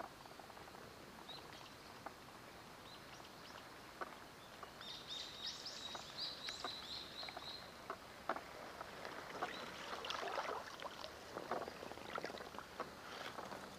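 Water splashing and lapping around a small boat's hull as it moves, the splashes coming more often in the second half. A bird chirps briefly about five to seven seconds in.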